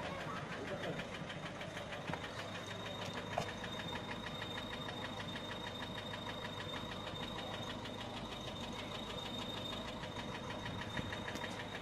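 Peugeot 407 1.6 HDi diesel engine idling with a rapid, even ticking knock: the strange noise that appeared after a turbo was fitted, which the mechanic thinks could be a broken tappet. A thin, steady high whine runs alongside.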